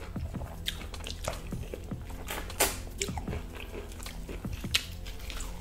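Close-miked chewing of crispy fried chicken, with scattered sharp crunches, the loudest about halfway through and near the end.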